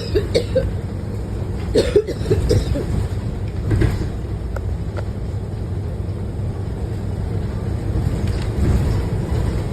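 Steady low drone of a city bus running, heard from inside the passenger cabin, with a couple of short sounds about two and four seconds in.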